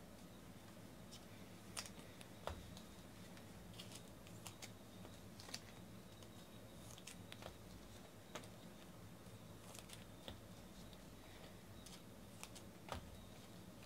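Faint, scattered light clicks and taps of trading cards being handled on a table, over a low steady room hum.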